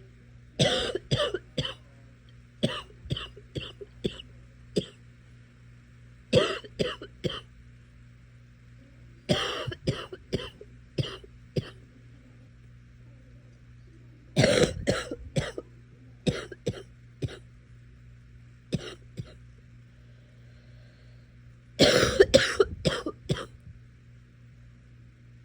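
A sick person coughing in repeated fits, each bout a quick run of several sharp coughs, with pauses of a few seconds between bouts.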